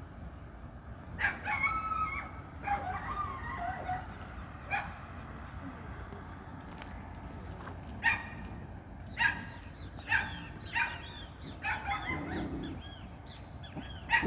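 Calls from domestic animals, sharp and repeated. Two longer gliding calls come a second or two in, then short calls about once a second in the second half, over a steady low background noise.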